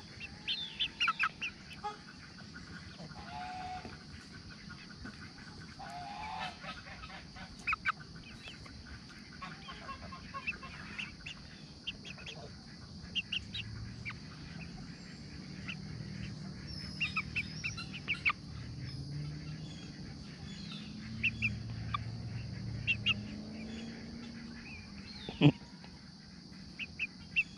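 Young chickens pecking papaya seeds from an open palm: clusters of sharp pecking taps with short chirps. Low calls from the flock come in through the second half, and one loud tap comes near the end.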